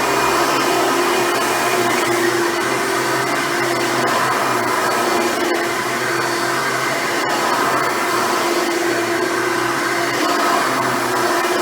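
Hoover Runabout vacuum cleaner running steadily, a constant motor hum and airflow rush.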